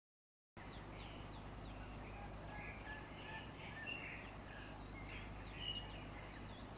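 Faint outdoor ambience, starting about half a second in: many short, high bird chirps and twitters over a steady low rumble.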